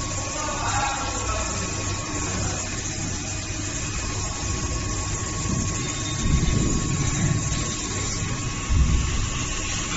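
Vertical machining center (VMC1100) running a machining job: a steady machine hum with thin steady tones over a rumble, which swells louder a couple of times, around six seconds in and again near nine.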